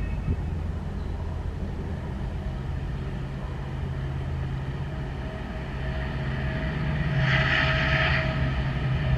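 EMD WDP4 diesel-electric locomotive's 16-cylinder two-stroke engine running as it approaches, a low drone that grows louder. About seven seconds in it gives a short horn blast lasting about a second.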